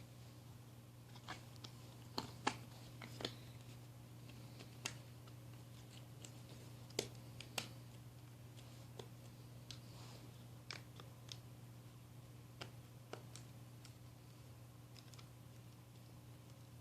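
Irregular light clicks and taps of plastic door-handle parts being handled and pressed together, the cover being fitted back onto the handle. A steady low hum runs underneath.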